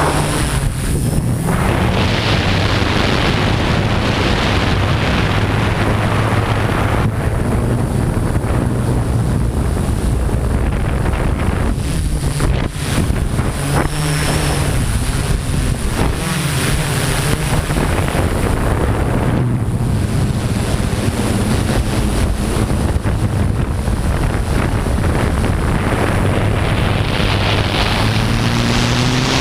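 Multirotor drone's motors and propellers humming steadily, with the pitch shifting slightly now and then, under heavy wind rushing over the microphone of the drone-mounted camera.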